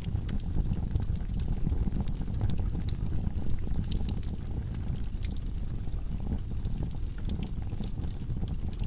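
Wood logs burning in a fireplace: a steady low rumble of the fire with many small, irregular crackles and pops.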